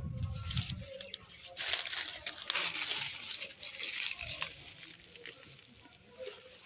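Rustling and crackling of leaves, vines and dry twigs being pushed aside by hand, with many small snaps, busiest for a couple of seconds after the start.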